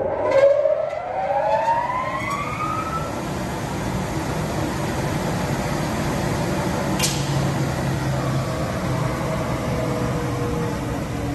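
CNC glass cutting machine running: a motor whine rising in pitch over the first few seconds, then a steady whir, with a single sharp click about seven seconds in.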